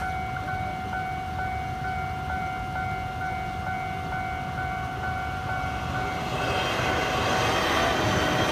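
Level-crossing warning bell ringing in a steady repeating electronic ding, about two and a half strikes a second. About six seconds in, a Taiwan Railways EMU800 commuter train ('Smile' train) arrives, and the rumble and rush of its wheels on the rails rise over the bell as it crosses.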